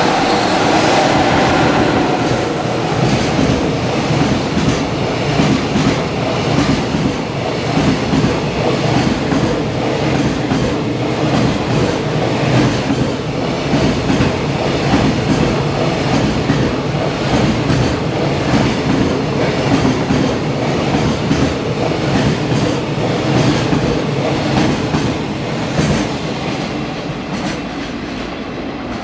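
JR Freight EF66 electric locomotive and its long train of container wagons passing close at speed. The locomotive's whine is heard briefly at the start, then the wagons' wheels clatter rhythmically over the rail joints, easing slightly near the end as the train draws away.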